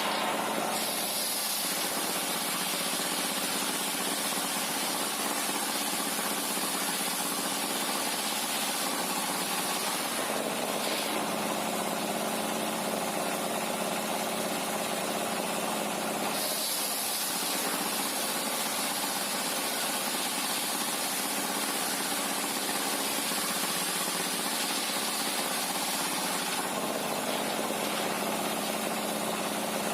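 Sawmill machinery running steadily, with a high hiss that comes in about a second in, drops out around a third of the way through, and returns for a while after the halfway point.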